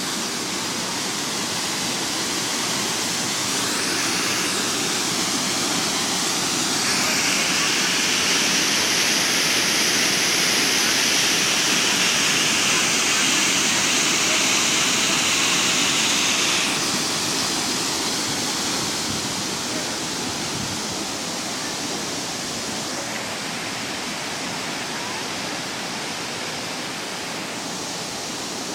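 Waterfall in heavy flow, a steady rush of falling water. It grows louder and brighter about a quarter of the way in, then eases back a little past the middle.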